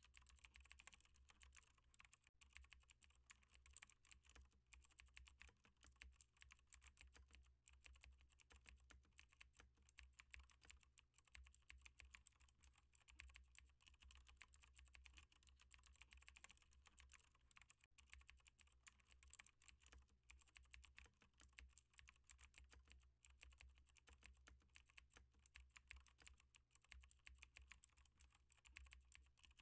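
Computer keyboard being typed on continuously, a faint, rapid stream of key clicks over a low steady hum.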